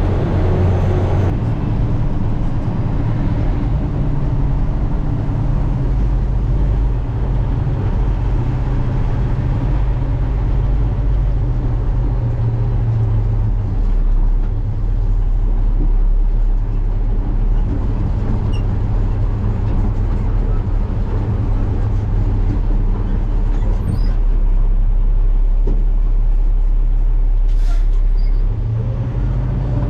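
Truck engine running under load while driving, heard from inside the cab; the engine note shifts a few times.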